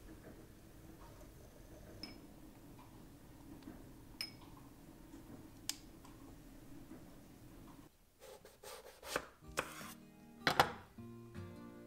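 A kitchen knife slicing through an eggplant and knocking on a wooden cutting board, several quick cuts with one loudest knock about ten and a half seconds in. Before that, only faint room hum with a few soft clicks; gentle music comes in near the end.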